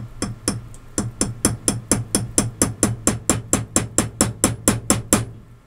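Small hammer tapping a staking punch in a watchmaker's staking set, about four light strikes a second that stop about five seconds in. The taps spread the rivet of a new balance staff to fix the balance wheel onto it.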